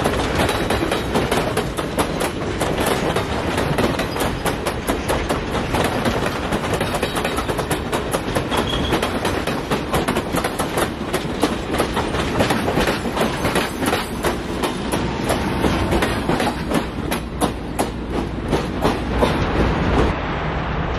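Passenger railroad cars rolling past close by, their steel wheels clattering over the rails in a rapid, irregular stream of clicks. The clicking stops near the end as the last car clears.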